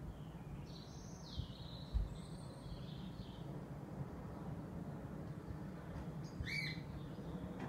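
Songbirds singing: a warbling, swooping phrase about a second in and a short sweeping call near the end, over a steady low background hum. A single short low thump about two seconds in.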